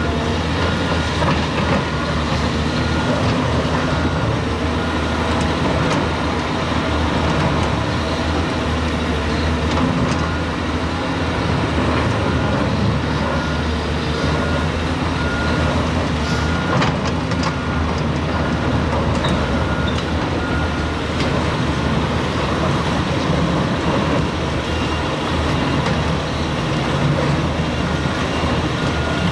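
Heavy diesel earthmoving machinery running steadily, with a reversing alarm beeping at a regular pace through roughly the first half. A few knocks come around the middle.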